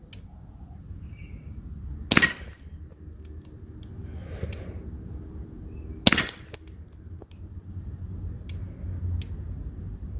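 Umarex Glock 19 CO2 air pistol firing two single shots, each a sharp pop, about four seconds apart.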